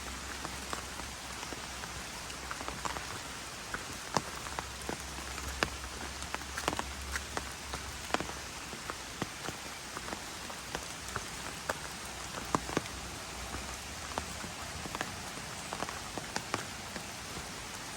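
Steady rain falling, with many separate drops hitting sharply close to the microphone at irregular moments.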